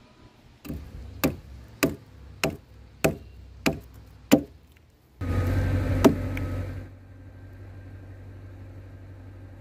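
Restored WW1 German pioneer pickaxe-hatchet chopping into a log: seven sharp strikes about two every second. A louder stretch of noise follows, with one more hard strike in it.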